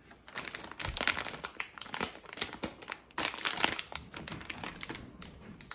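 Plastic snack bag crinkling in quick, irregular rustles as it is handled and held open.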